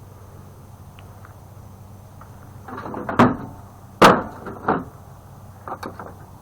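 A few sudden clunks and knocks of sheet metal as a partly stripped microwave's case is handled, the loudest about four seconds in, over a faint steady hum.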